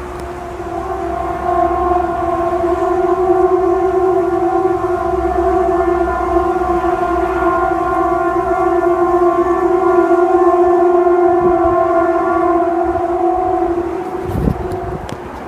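A long, steady droning tone with a stack of overtones and no rise or fall in pitch, swelling in over the first couple of seconds and fading out near the end; it is offered as one of the unexplained 'strange noises in the sky'.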